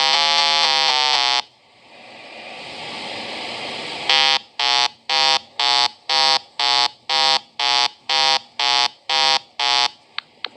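An electronic alarm buzzer: first a fast-pulsing buzz that stops about a second and a half in, then a rising hiss, then buzzy beeps about twice a second, thirteen in a row.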